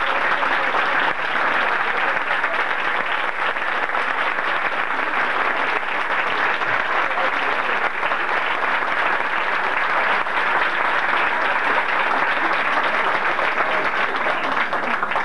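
Hall audience applauding steadily after a speech, the clapping stopping right at the end.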